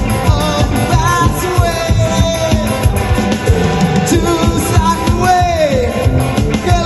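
Live rock band playing: a man singing into a microphone over electric guitars and drums.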